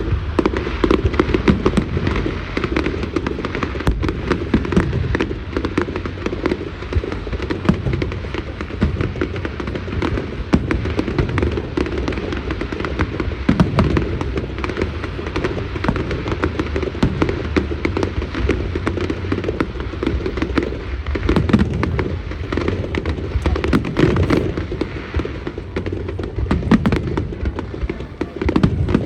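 Fireworks display going off in a dense, unbroken barrage of bangs and crackles, many blasts a second.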